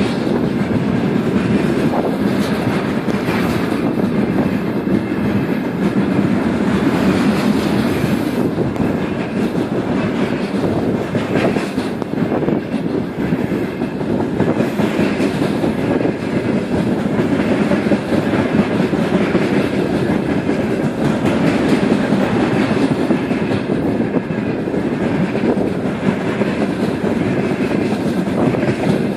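Freight train wagons rolling past at speed, a steady loud rumble with the wheels clattering over the rail joints.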